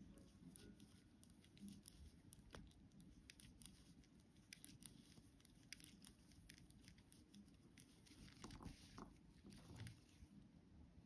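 Very faint, irregular clicking and rustling of knitting needles and yarn as stitches are worked round on 9-inch circular needles.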